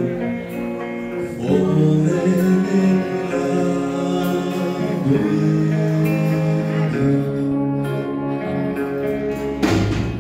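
A song with acoustic guitar and singing.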